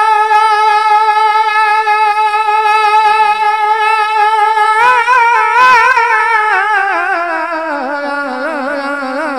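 Solo voice of a naat reciter holding one long, steady sung note. About five seconds in it breaks into a wavering vibrato and slowly slides down in pitch.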